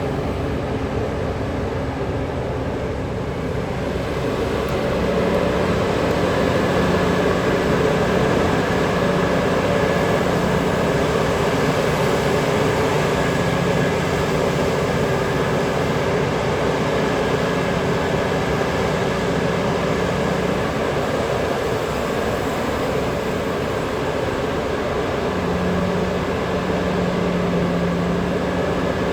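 Heavy diesel mining machinery running steadily under load, with a held engine tone in the hum. It gets louder about five seconds in.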